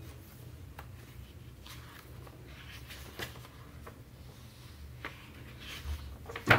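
Faint rustling and light taps of paper notebooks being handled, over a low room hum, with a sharper knock just before the end.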